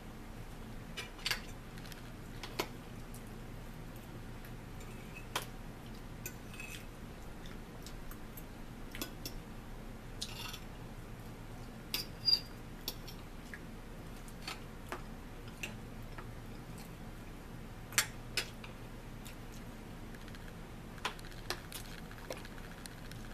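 Scattered clicks and taps of a fork against a plate and dish while eating, with a few soft rustles, over a faint low steady hum.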